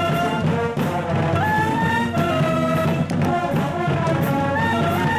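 University marching band brass section playing a lively tune, with trombones and trumpets carrying a short melodic phrase that repeats about every two seconds over a steady low accompaniment.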